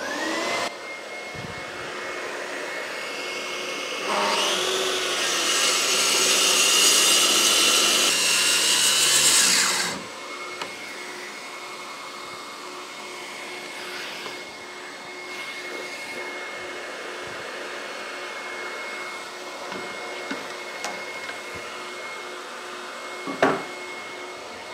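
A dust extractor starts up and runs steadily with a high whine. About four seconds in, a plunge track saw spins up and rips through 2-inch maple for about six seconds, the loudest part, then stops while the extractor runs on. There is a single knock near the end.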